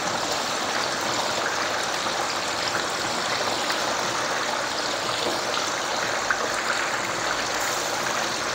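Turmeric gravy boiling steadily in a wok, a constant bubbling sizzle. There are a few soft splashes in the second half as pieces of fish head go in.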